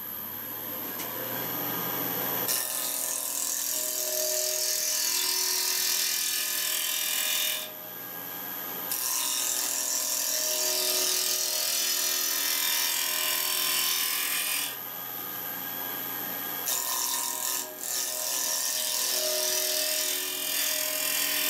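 Wood lathe motor running up to speed with a steady whine, then a bar-mounted Mate #1 cutter scraping into the inside of a spinning wooden bowl. There are three cuts of about five seconds each, with only the motor whine in the short breaks between them.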